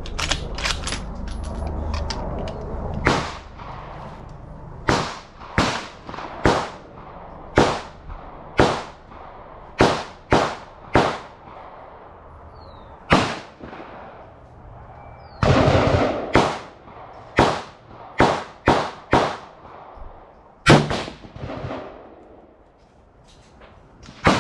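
Gunshots at a shooting range: about twenty sharp reports at irregular intervals, some only half a second apart, each trailing off in a short echo. A run of fainter cracks comes in the first two seconds, and the loudest shot falls near the end.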